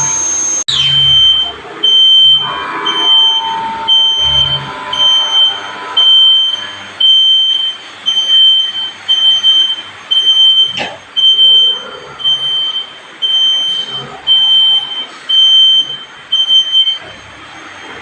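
A steady high machine whine cuts off abruptly, then an electronic alarm beeper sounds a single high beep about once a second, some seventeen times, before stopping.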